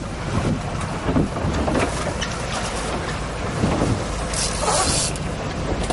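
Boat engine running with steady low rumble and wind buffeting the microphone, with a brief high hiss about four and a half seconds in.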